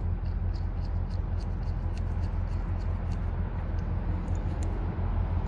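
Light, irregular clicks and taps of small metal parts and tools being handled, over a steady low background rumble.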